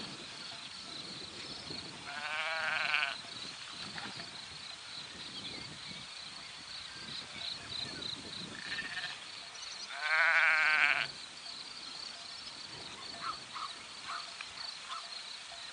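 Sheep bleating in a grazing flock: two loud, wavering bleats about eight seconds apart, each about a second long, with a few fainter calls between them. A steady, pulsing high-pitched chirring runs underneath.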